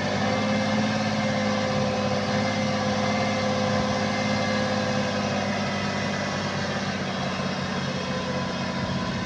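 Heavy truck's diesel engine running steadily, its pitch holding even with no revving.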